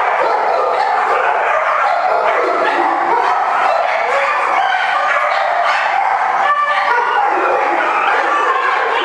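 Dogs in kennel runs barking and yipping continuously, many overlapping calls at once with no pause.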